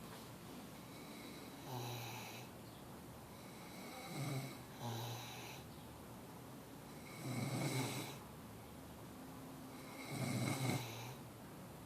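A person snoring: five rasping snores a few seconds apart, each with a low buzz beneath it, two of them close together about four to five seconds in. The last two are the loudest.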